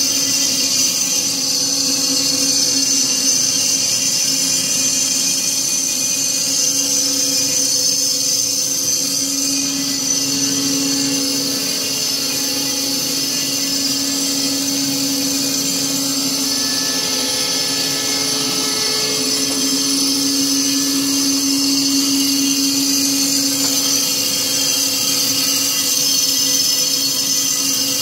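BOMAR Workline 610.450 DGH semi-automatic metal-cutting bandsaw running steadily: a constant machine hum with a high whine.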